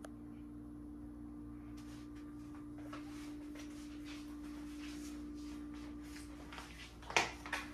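Quiet room tone with a steady low hum; from about three seconds in, soft steps and camera handling noise as the phone is carried around, with one sharper knock near the end.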